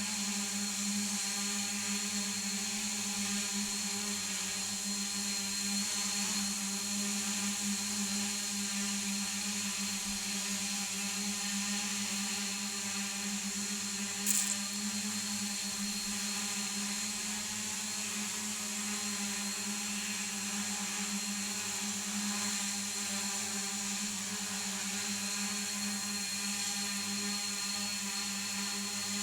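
Home-built multirotor drone's electric motors and propellers humming at a steady, unchanging pitch, as when hovering under altitude hold. One short click about halfway through.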